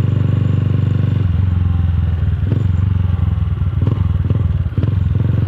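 Motorcycle with a loud aftermarket exhaust running at a steady note; about a second in the note drops lower and turns uneven, with a few short sharp pops.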